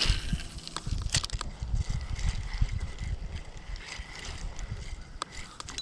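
Wind rumbling and buffeting on the microphone as a rod and reel are handled and worked, with a few sharp clicks. A faint, thin steady tone runs through the middle.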